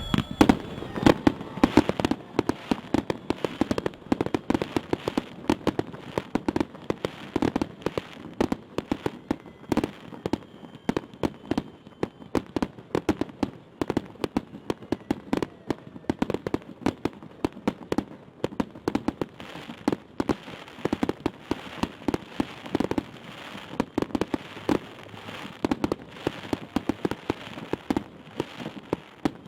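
Fireworks going off: a dense, continuous crackle of many small bangs a second, with louder bangs mixed in, and a high whistle near the start.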